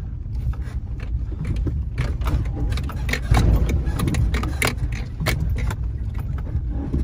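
Vehicle crawling over a rough, rocky dirt track, heard from inside the cab: a low engine and tyre rumble with frequent knocks and rattles as the body and suspension jolt over the rocks.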